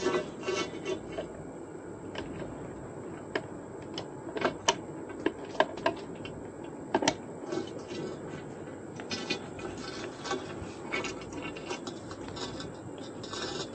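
Scattered clicks and taps of hands working on a cable and its small fittings, several sharper clicks close together near the middle.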